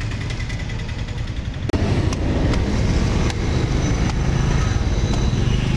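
Street traffic noise: a steady low rumble of passing vehicle engines, getting louder about two seconds in, with a few sharp knocks.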